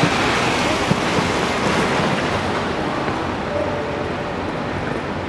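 City street traffic: a lorry passing close by with a steady rush of engine and tyre noise that fades after about two and a half seconds, leaving a lower steady traffic hum.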